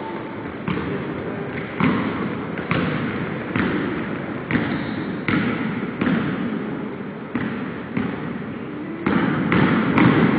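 Basketball bouncing on a hardwood gym floor, dribbled about once a second, each bounce echoing through the gym. The thumps come closer together near the end.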